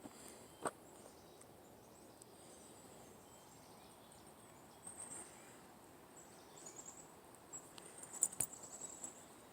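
Faint footsteps walking along an outdoor trail, with a few light, high clicks and chirps in the second half.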